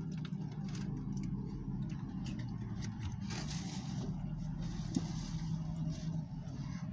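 Chewing and the handling of a paper fast-food bag, heard as many small ticks and crackles, over the steady low hum of a car engine running.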